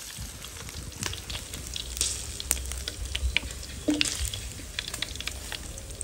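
Eel pieces frying in hot oil in a wok: a steady sizzle with scattered crackles. Metal tongs clink now and then as fried pieces are lifted out into a mesh strainer, one louder clink about four seconds in.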